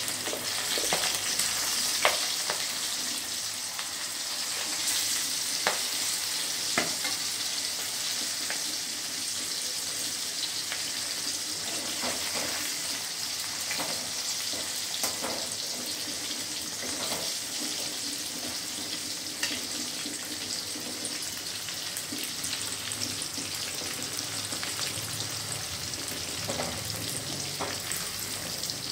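Batter-coated cauliflower florets deep-frying in hot oil in a stainless steel kadai, a steady sizzle and bubbling. A metal spoon clinks and scrapes against the pan now and then as the pieces are stirred.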